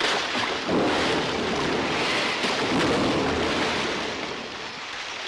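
Vintage Disney cartoon sound effect: a long rushing noise, like a gust or surge, that swells about a second in and slowly dies away near the end.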